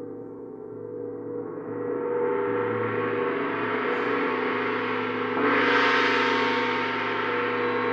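Planetary gong played in a continuous roll, its sustained ringing swelling gradually louder and brighter. A stronger stroke about five and a half seconds in makes it suddenly fuller and brighter.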